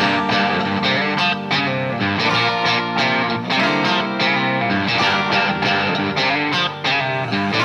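Background music led by guitar, loud and continuous, with a regular rhythm.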